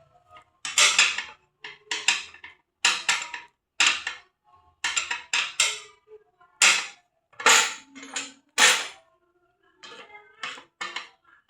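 Metal parts and tools clanking and clattering as a scroll saw is taken apart: about a dozen sharp knocks at irregular intervals, some ringing briefly.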